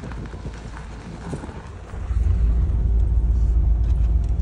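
Car driving slowly on a dirt track, a low rumble with scattered small ticks from the tyres on the ground; about two seconds in it turns to a louder, steady drone of engine and road noise heard from inside the cabin.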